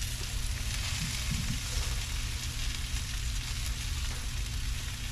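Chicken quarters sizzling on a gas grill, a steady hiss, over a steady low rumble.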